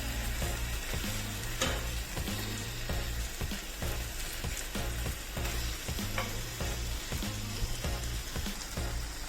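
Hamour fish pieces sizzling steadily in hot oil in a frying pan as they pan-grill, with a sharp click about a second and a half in.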